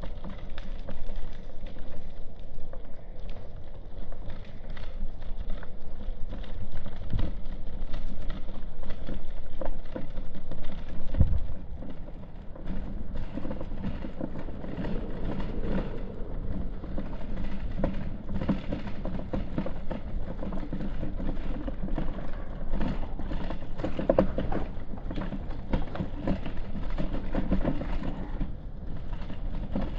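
Outdoor city street ambience: a steady low traffic rumble with many irregular short knocks.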